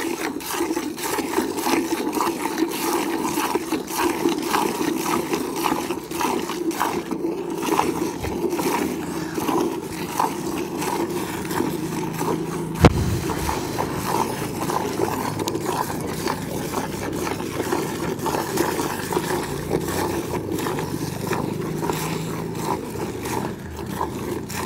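A cow being milked by hand: jets of milk squirting into a pail in a quick, steady rhythm of hissing squirts. A single sharp knock about halfway through.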